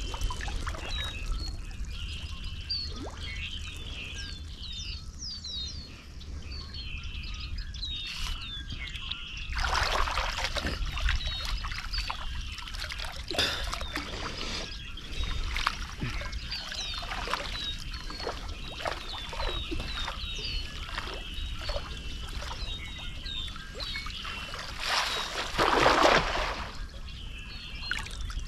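Small birds chirping continuously, with water splashing and sloshing against a canoe several times, loudest about a third of the way in and again near the end, over a low wind rumble on the microphone.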